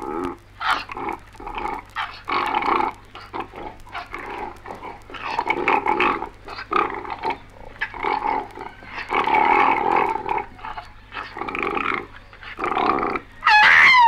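Two male koalas fighting: harsh grunts and snarling bellows in irregular bursts, rising to a high scream just before the end.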